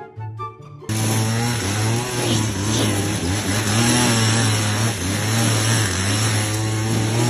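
An engine running loud and steady, cutting in suddenly about a second in, its pitch wavering a little, with a steady high whine above it.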